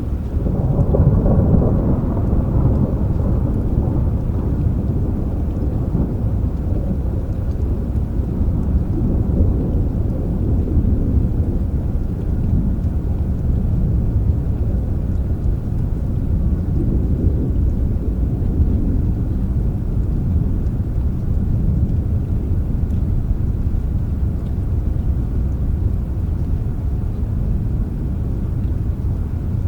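Thunderstorm: a deep rolling rumble of thunder with rain, swelling in the first few seconds and then settling into a steady low rumble.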